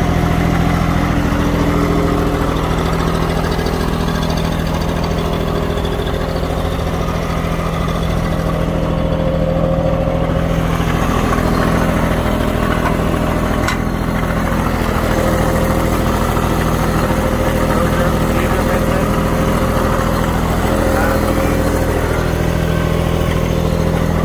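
Diesel engine of a Bobcat MT52 mini track loader idling steadily.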